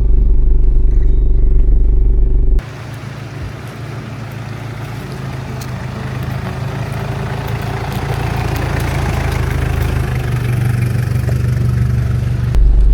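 Toyota Hilux Surf driving on a rough road: engine and road rumble, with faint clicks. The sound cuts between takes about two and a half seconds in and again near the end: a heavy, low, in-cab rumble on either side, and a lighter road noise between that slowly grows louder.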